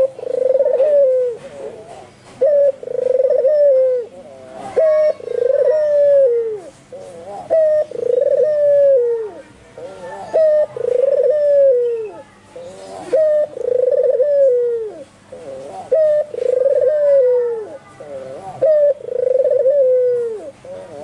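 White albino puter (Barbary dove) cooing over and over, about one coo every two seconds; each coo is a short sharp note followed by a longer falling note, delivered hard and without pause.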